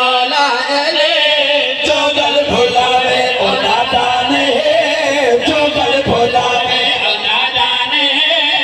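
Men singing a Punjabi qasida through a loudspeaker system, their voices wavering on long held notes.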